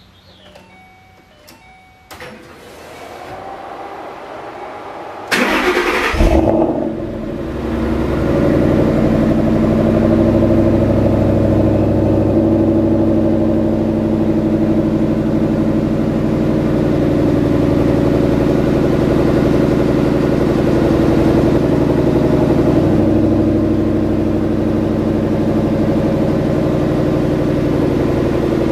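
Ford Mustang engine started after sitting for a month. After a few seconds of rising hum, it cranks and catches about five seconds in, flares briefly, then settles into a steady idle. The idle note shifts slightly about two-thirds of the way through.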